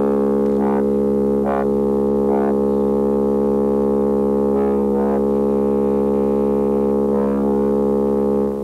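Electronic synthesizer drone: one low note held steady with many overtones, with brief brighter flares rising over it every second or two.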